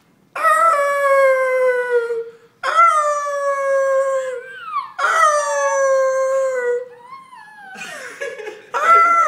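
A small dog howling along with a person's howls: three long drawn-out howls of about two seconds each, each sagging slightly in pitch, then a rougher, broken stretch and a fresh howl near the end.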